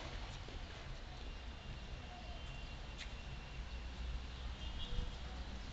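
Low outdoor background noise with a steady low rumble, a few faint high chirps, and a single light click about three seconds in; nothing loud happens between deliveries.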